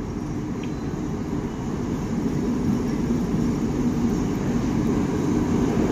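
Alsthom diesel-electric locomotive hauling a container freight train, its engine drone and rail rumble growing steadily louder as it approaches.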